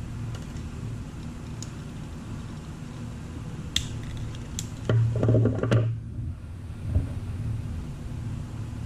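Wire stripper closing on a wire end, with sharp clicks and then a short cluster of clicks and rustling as the insulation is cut and pulled off, followed by a single knock. A steady low hum runs underneath.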